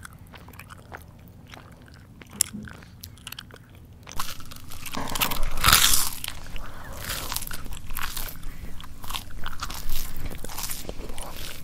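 A person chewing crunchy food close up, with sharp mouth clicks. Sparse and soft at first, then loud dense crunching starts about four seconds in and carries on.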